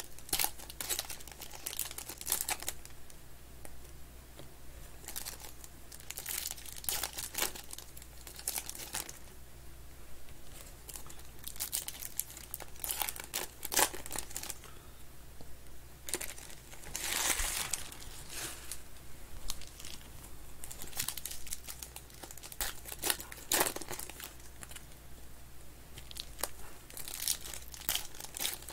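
Foil wrappers of 2021 Panini Contenders football card packs being torn open and crinkled by hand, in irregular bursts of crackling with no steady rhythm. The loudest burst comes a little past halfway.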